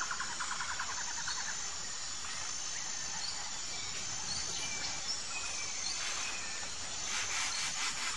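Insects calling: a steady high-pitched whine with a fast pulsing trill that fades after a second or so, and brief bird chirps now and then. A short burst of rapid buzzing comes near the end.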